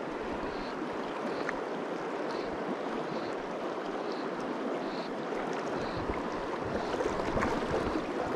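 Steady rush of a fast-flowing river, the current running close to the microphone.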